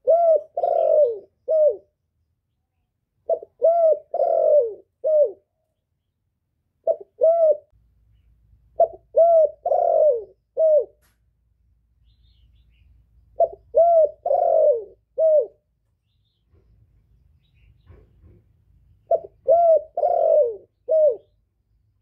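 Male spotted dove cooing: six phrases of four or five arched coo notes, one cut short after a single note, repeated every few seconds. It is a decoy male's call, used to draw wild doves in.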